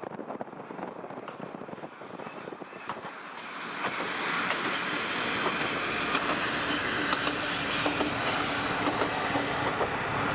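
Kominato Railway diesel railcar on the track, its wheels clicking over the rail joints. It grows much louder about three and a half seconds in and stays loud as it runs close by.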